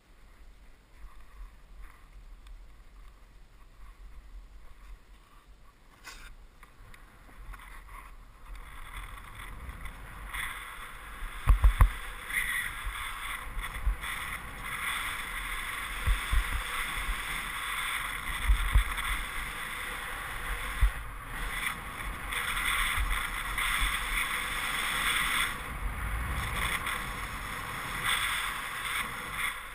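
Skis sliding over snow: a steady hiss that swells about ten seconds in as the skier gathers speed, broken by a few short low knocks.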